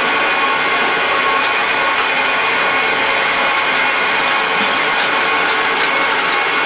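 SKJ200 flat-die sawdust pellet mill running, a steady mechanical noise with a faint constant whine.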